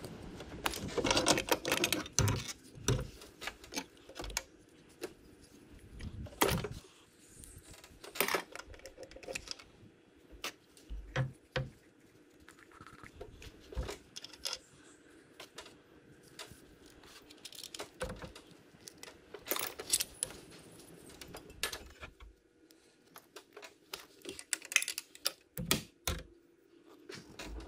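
Irregular clicks, clinks and light knocks of small metal engine parts and fittings being handled, some much louder than others, with no engine running.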